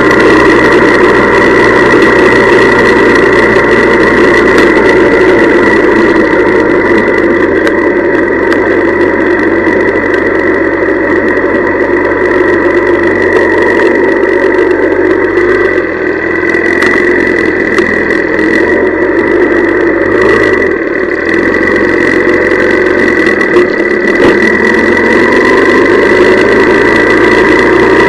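Honda CL175 motorcycle's small parallel-twin engine running, with a steady high whine over it; the engine note shifts and briefly drops about halfway through and again a few seconds later.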